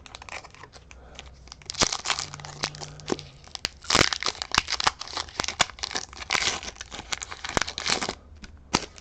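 Foil wrapper of a Pokémon TCG Silver Tempest booster pack crinkling and tearing as it is opened by hand: a dense run of sharp crackles from about two seconds in until near the end, loudest about four seconds in.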